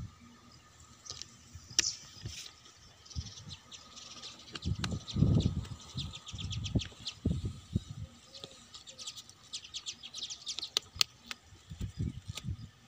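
Metal clicks and low knocks as hands work the key and latch of a locked aluminium-framed instrument case, with handling thuds, the loudest about five seconds in. Birds chirp in rapid runs in the background, most busily near the end.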